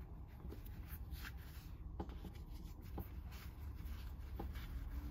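Hands squishing and pulling apart MadMattr modeling dough: a faint crumbly rubbing and crackling with scattered small clicks.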